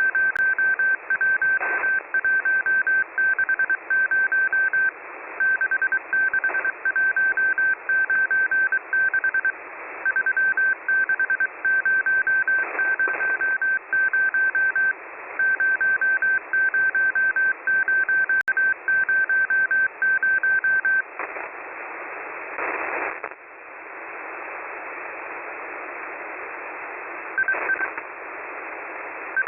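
Morse code received on a shortwave radio: a single steady beep tone keyed on and off in dots and dashes over a narrow band of static hiss. The keying stops about two-thirds of the way through, leaving only static with a brief louder rush of noise, then starts again near the end.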